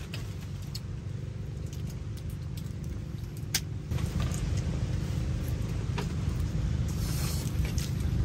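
A steady low rumble with a faint hum, over which a few sharp clicks and cracks sound, the clearest about three and a half and six seconds in: crab shells being cracked and plates handled while eating.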